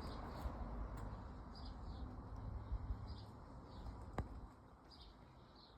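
Small birds chirping repeatedly in the background over a low rumble that drops away about four and a half seconds in, with a single sharp click just before.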